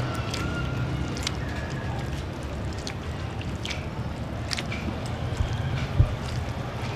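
Hands kneading wet peanut paste in a steel basin as water is worked into it, with soft squelches and scattered short clicks over a steady low rumble. A single thump about six seconds in is the loudest sound.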